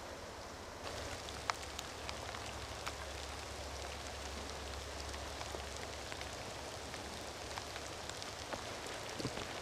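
Steady outdoor background noise with a low hum and many scattered faint ticks, a little louder and brighter from about a second in.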